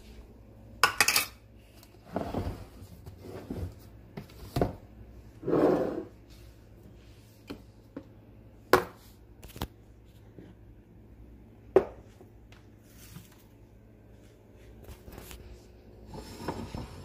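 Plastic measuring cups and spoons clattering as they are handled, and kitchen containers set down on a countertop: an irregular string of clicks, knocks and short rustles, about a dozen in all.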